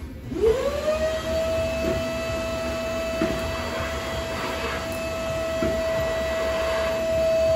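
Small electric motor of a barber's tool switched on: it spins up to a steady high hum within about a second and then runs at a constant pitch, with a few faint clicks over it.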